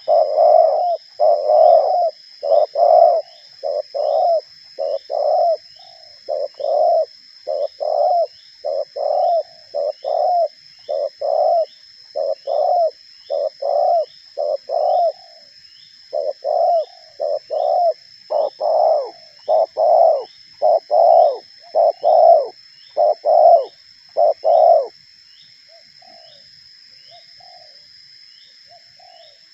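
Spotted dove cooing close by in a long run of rapid coo notes, about two a second, which stops abruptly near the end, leaving a few faint coos. A steady high-pitched whine and a faint regular ticking run behind it.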